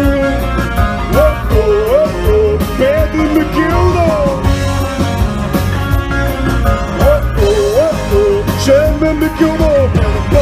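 Rock band playing live and loud: guitars over a steady beat, with a melody line sliding up and down in pitch.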